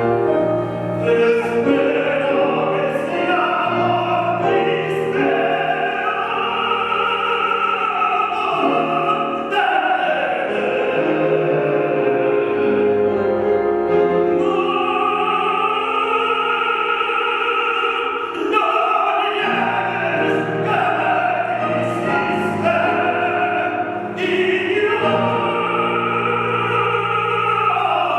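Classical-style singing with piano accompaniment: long held, wavering notes carried over steady chords, in a continuous passage.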